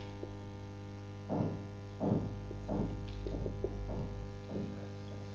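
Steady electrical mains hum, with a series of faint short scrapes from a marker pen writing on a whiteboard.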